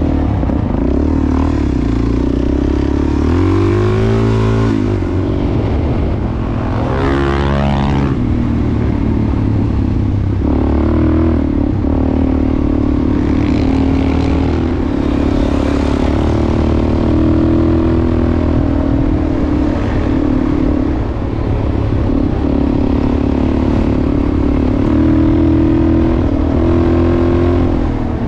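Dual-sport motorcycle engine running under way on a gravel road, its pitch sweeping up and down twice in the first eight seconds as it revs and changes gear, then holding a fairly steady speed.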